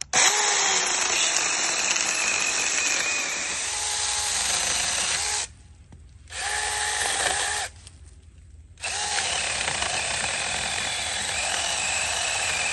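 NaTiddy cordless mini chainsaw with a brushless electric motor cutting through a downed branch: the motor's steady whine and the chain working through the wood. It stops twice for about a second, around five and eight seconds in, then runs again.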